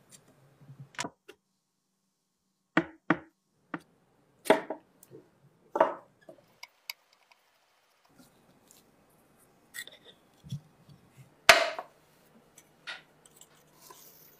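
Irregular sharp clicks and knocks of a screwdriver and small metal parts being worked and handled while a rusty airsoft gun is taken apart, about a dozen strikes with the loudest knock near the end.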